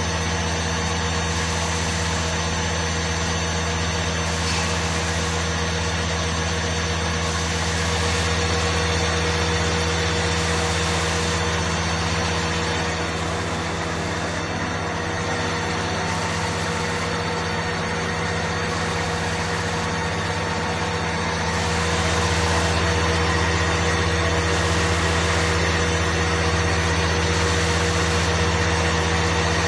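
Four-spindle gun drilling machine running through a deep-hole drilling cycle: a steady machine hum with a strong low drone and a few constant tones above it. It gets a little louder about two-thirds of the way through.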